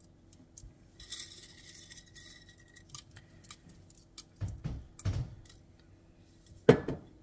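Dried jalapeño slices crackling and rustling as they are pinched from a glass jar and sprinkled into a pot of vinegar, with light clicks and a couple of dull thumps. Near the end a single sharp knock, the glass jar set down on the counter.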